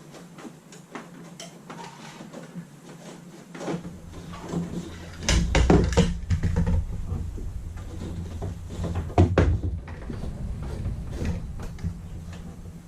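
Knocks, clicks and rubbing of wire being fished and handled through cabinetry, loudest in two clusters a little under halfway and about three quarters of the way through, over a steady low hum.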